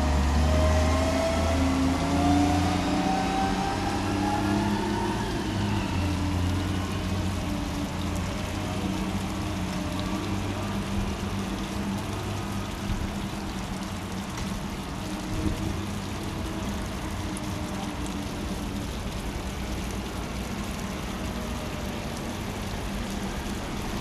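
Motor vehicle engine accelerating, its pitch rising over the first five seconds or so, then running on steadily with a low hum.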